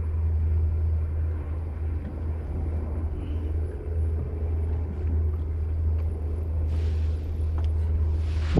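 Steady low rumble of an idling boat motor, with a faint steady hum above it and a few short hisses near the end.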